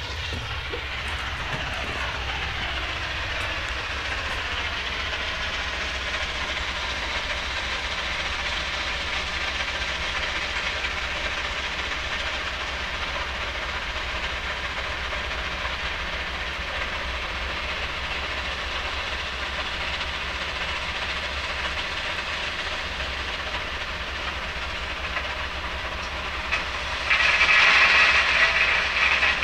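Steady industrial noise from a stone transshipment yard at a railway siding: a constant hiss with a low machinery hum underneath. About 27 s in it suddenly gets louder, as an excavator dumps stone into a railway wagon.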